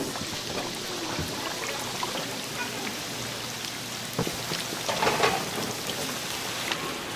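Food sizzling in hot oil: a steady crackling hiss with scattered small clicks and a brief louder clatter about five seconds in.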